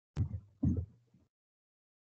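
A man's voice, a word or two spoken briefly in the first second, then dead silence.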